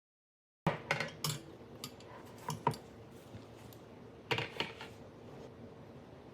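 Kitchen utensils and dishes clinking and tapping against each other, a series of short sharp knocks that come in small clusters, about a second in and again about four seconds in.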